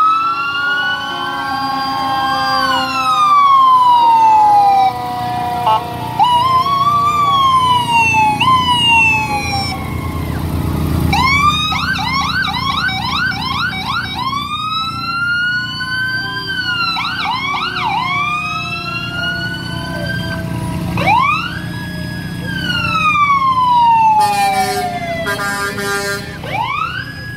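Several fire truck sirens sounding at once. Slow wails rise and fall, and fast yelping sweeps come in about eleven seconds in. Low engine rumble runs underneath.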